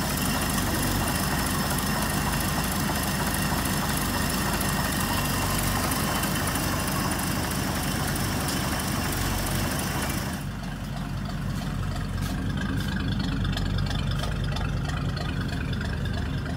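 Cadillac Series 452's 45-degree V16 engine running steadily, likely at idle. About ten seconds in the recording changes and the high hiss drops away, while the steady low engine note carries on.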